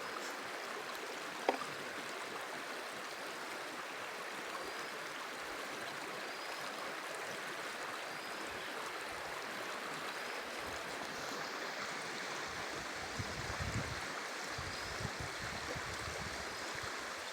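Steady rushing of river water. There is a sharp click about a second and a half in, and a few low rumbles between about ten and fifteen seconds in.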